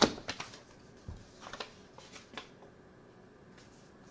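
A few scattered sharp clicks and short rustles from hands working at a desk, the loudest click right at the start, then quiet room tone for the last second and a half.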